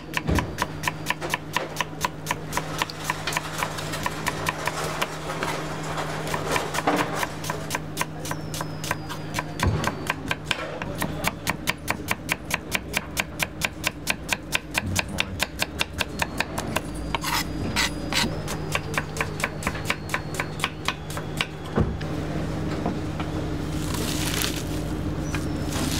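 Chef's knife slicing red onion on a wooden cutting board: quick, even knife strokes about four a second that stop near the end, followed by a rustle as hands gather the sliced onion.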